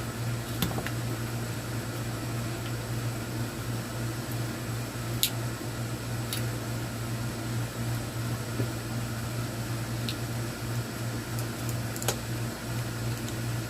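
Steady hum of a room air conditioner, with a few sharp plastic clicks as the cover of a turn signal relay is pried off.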